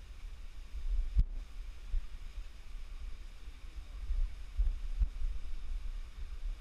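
Wind rumbling on the microphone, with irregular soft thumps from footsteps and camera knocks while walking along an overgrown rocky path; the sharpest thump comes about a second in.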